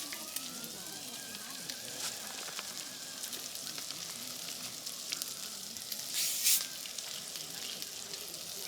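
Food sizzling as it fries on a hot pan or grill, a steady hiss with small crackles, and a louder burst of hiss about six seconds in.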